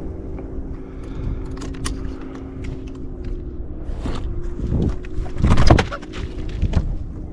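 Knocks and clicks of gear and footsteps on a bass boat deck over a low wind rumble, with a heavy thump about five and a half seconds in. A steady hum of several tones fades out partway through.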